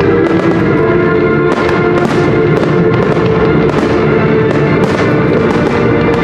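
Aerial firework shells bursting in a rapid, irregular string of bangs and crackles, over loud music with sustained tones.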